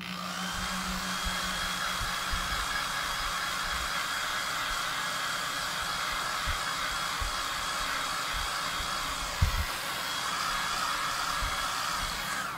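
Handheld hair dryer blowing steadily, with a faint high whine, drying freshly applied chalk paste; it cuts off near the end. A few soft low bumps of handling, one louder about nine seconds in.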